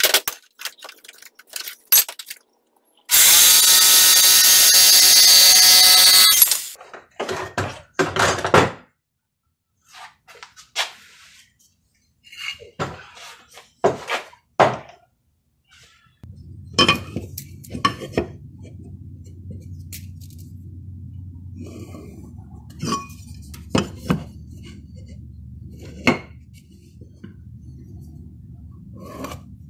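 Corded jigsaw running and cutting through a pine 2x4 for about three seconds, the loudest sound here, followed by knocks and clatter of the cut wood pieces being handled. Later a low steady hum sets in, with light taps over it.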